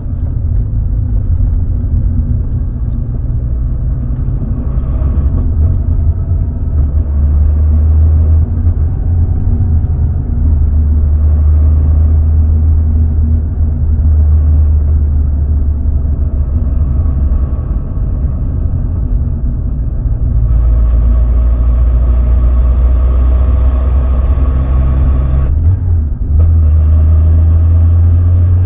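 Steady, loud low rumble of a motor vehicle running, with a change in its tone about twenty seconds in and a brief dip a few seconds before the end.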